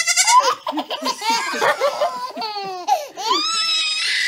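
A baby laughing in repeated bursts, with a goat kid bleating close by; a long, high call begins near the end.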